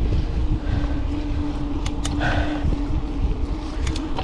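Wind rumbling over the microphone of a moving mountain bike, with a steady hum and a few sharp clicks about two and four seconds in.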